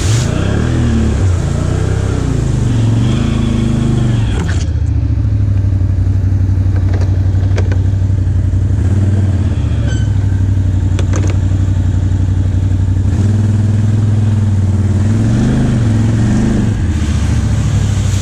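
Can-Am Outlander XMR 570 ATV's V-twin engine revving up and down as it ploughs through muddy water, with splashing spray on top. About four and a half seconds in the spray stops and the engine settles to a steady idle. Near the end the revs rise and fall again.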